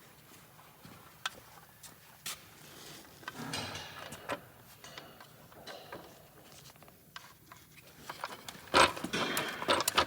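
Light clicks and taps of engine parts and gaskets being handled during reassembly, with a sharp knock and a short burst of rustling clatter near the end.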